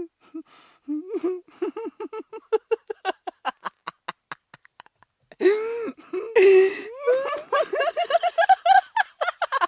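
A person laughing hard: a run of quick 'ha' pulses that fade out over a few seconds, then after a short gap a louder burst that climbs in pitch.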